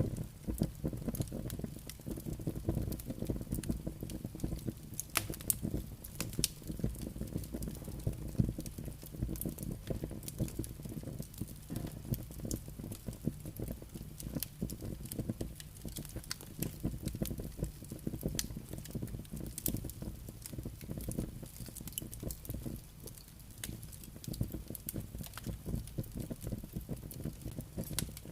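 Campfire crackling and popping in quick, irregular snaps over a steady low rumble of wind.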